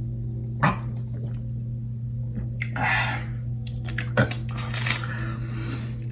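A man gulping soda that was chilled in the freezer, then gasping and blowing out sharp breaths with a brain freeze: two sharp clicks and two breathy huffs, the second one longer. A steady low hum runs underneath.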